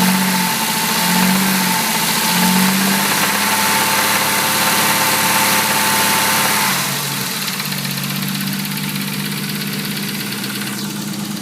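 Nissan RB30DET turbocharged straight-six running with a knock, which the owner takes for a worn or spun big-end bearing. It runs louder for the first several seconds, then drops back to a quieter, lower note about seven seconds in.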